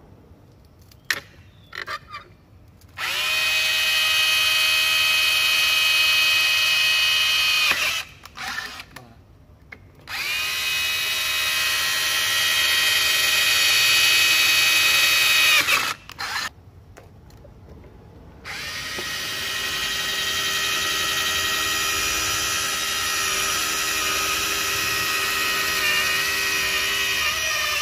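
Makita DHR171 18V cordless rotary hammer drilling in three steady runs of several seconds each, a high motor whine. The first two bore through galvanized steel box section with a twist bit; the last, a little quieter, bores into a timber beam. A few light handling clicks fall between the runs.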